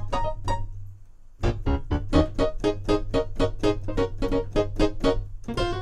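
Yamaha Montage M synthesizer playing a bright gospel grand piano patch: fast repeated chords and notes, a brief pause about a second in, then a quick run of chords, about four or five a second.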